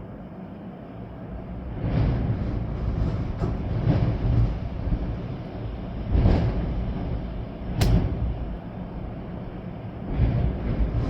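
Storm-force wind gusting through swaying trees with rain, coming in heavy rumbling surges every couple of seconds. A single sharp knock about eight seconds in.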